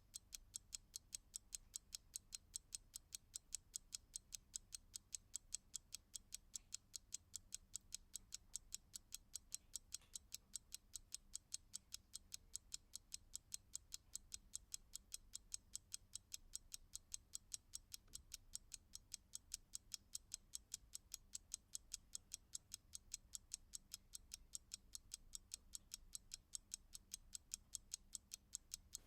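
Clock ticking in a fast, even rhythm of several light ticks a second.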